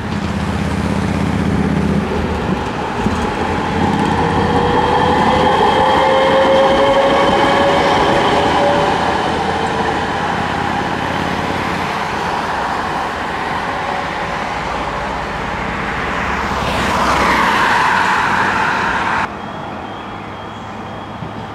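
City tram running along the street, with a whine that rises in pitch over several seconds as it gathers speed. It cuts off suddenly near the end to quieter street traffic.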